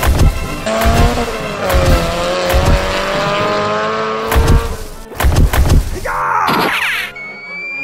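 Edited-in cartoon sound effects over a thudding beat. There is a long squeal like a tyre skid for about four seconds, more thuds, then a swooping sweep and rising whistle glides near the end.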